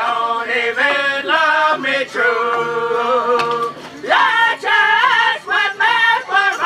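Three men singing a powwow hand drum song together, their voices rising and falling in phrases with short breaks between.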